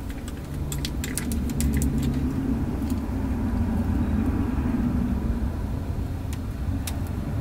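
A low, steady rumble that grows a little louder, with a few light clicks and taps as small cosmetic packaging is handled.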